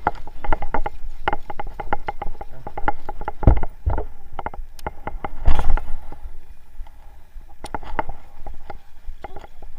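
Fishing reel clicking rapidly as line is wound in, the clicks thinning out after about four seconds, with two dull thumps about three and a half and five and a half seconds in.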